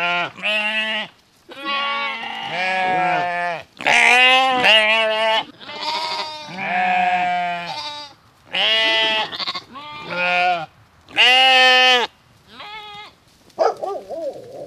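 Sheep bleating repeatedly: about ten wavering bleats, each a second or so long, with short pauses between them.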